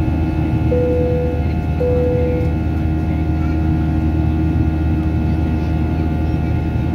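Cabin noise of a Boeing 737-800 climbing after takeoff: the steady roar of its CFM56-7B turbofan engines, with a constant hum of engine tones. Two short tones at the same pitch sound about a second apart, near the start.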